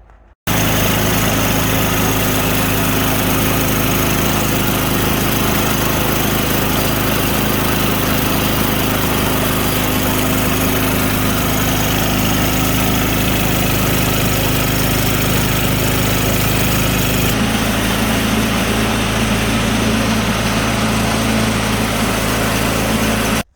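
Yard Machines snow blower's small four-stroke engine running steadily at constant speed, being warmed up before its oil is drained.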